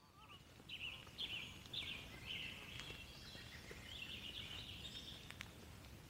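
A songbird singing: a phrase of quick chirps and trills about a second in and a second phrase around four seconds, over faint outdoor background noise.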